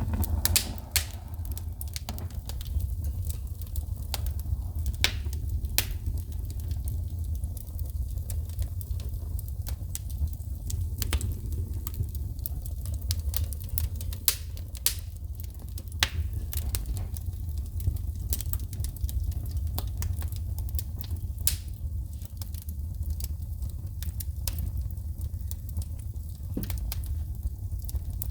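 Wood fire burning in a fireplace with a low steady rumble of flame, broken by sharp irregular pops and crackles of wood sparking, roughly one every second or two.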